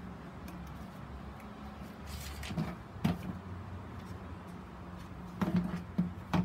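Black plastic grid mounting board knocking and clattering against a plastic box as it is turned by hand: a couple of knocks about halfway through and a quick cluster of three near the end, over a low steady hum.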